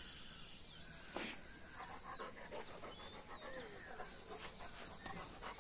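Labrador retriever panting faintly close to the microphone, with a soft knock about a second in.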